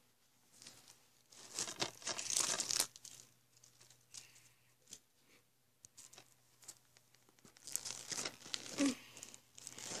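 Plastic shrink wrap being torn and crinkled off a DVD case, in two spells of rustling (one about two seconds in, another near the end) with scattered light crackles between.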